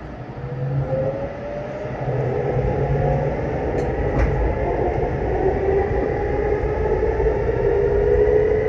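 Nishi-Kyushu Shinkansen N700S train pulling away from a station, its motor whine rising slowly in pitch as it gathers speed over a steady rumble of wheels. Two faint clicks come about four seconds in.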